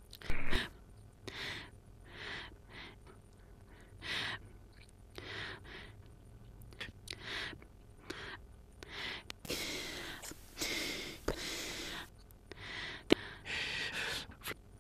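A person's breathy gasps and exhales in short, irregular bursts, with a longer hissing breath about ten seconds in. A few sharp clicks stand out, the loudest about half a second in.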